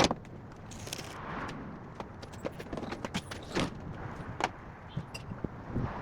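Scattered light clicks and knocks, irregular, over a steady background noise, with a sharp knock right at the start and a short hiss about a second in.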